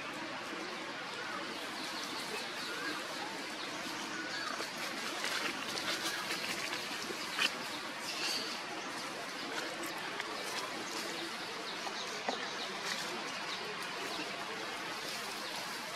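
Dry leaves crackling and rustling under a macaque's feet as it walks, against a steady outdoor hiss. There are a few short high chirps near the middle and a sharp click about seven seconds in.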